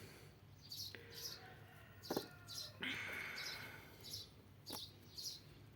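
Small bird chirping repeatedly in short, high notes, faintly in the background. A few faint clicks and a brief rustle come from work close by.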